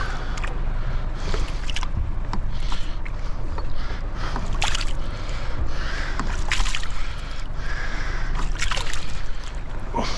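Water sloshing and splashing around a small fishing boat, with wind rumbling on the microphone and scattered short knocks.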